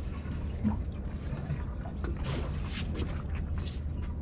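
Water lapping and splashing against the hull of a drifting fishing boat, with several short splashes between about two and four seconds in, over a steady low rumble.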